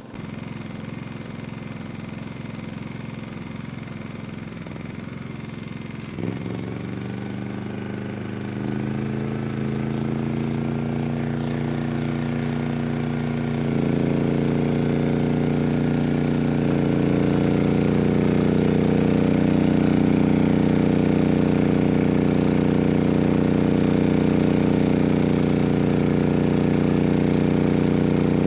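MAXPEEDINGRODS MXR5500 inverter generator's engine running and stepping up in speed and loudness as space heaters are switched on one by one, adding electrical load. A sharp rise comes about fourteen seconds in, and the engine settles at a steady, higher speed near its 5000-watt rated load.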